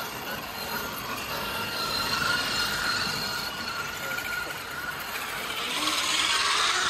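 Electric motor and gears of a radio-controlled scale crawler whining steadily as it crawls, growing a little louder near the end.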